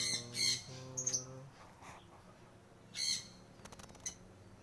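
Cockatoo squawking: two quick harsh squawks at the start, a shorter higher one about a second in, and another about three seconds in.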